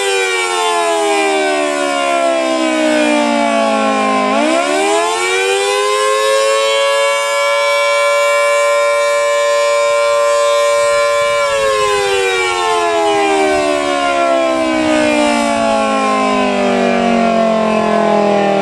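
Federal Signal Model 2T dual-tone tornado siren wailing, its two-note chord winding down, spinning back up about four seconds in, holding at full pitch, then winding down again from about two-thirds of the way through.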